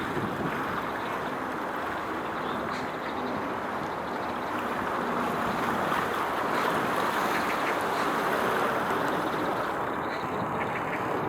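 Steady outdoor rushing noise, like wind on the microphone, with no distinct events.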